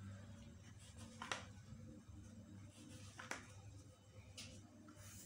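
A few faint, soft taps of a round fluted cutter pressed through rolled doughnut dough onto a plastic-covered table, over near silence.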